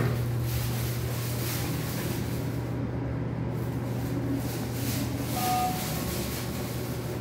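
Hydraulic elevator car running down between floors: a steady low hum inside the cab. About five and a half seconds in, a short electronic beep sounds as the car passes a floor.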